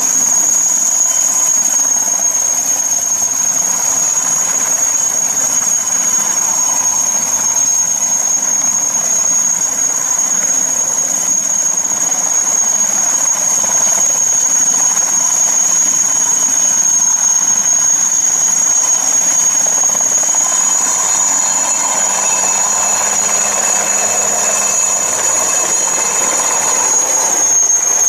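IAR 330 Puma military helicopter lifting off and hovering: a steady, high-pitched whine from its turboshaft engines over a broad rushing engine and rotor noise, which grows somewhat louder about two-thirds of the way in as it climbs.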